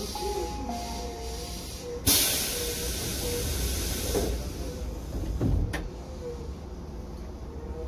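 A stopped electric commuter train's compressed-air system lets out a sudden loud hiss about two seconds in, fading over a couple of seconds, with a sharp click a few seconds later. A few short beeping tones sound at the very start.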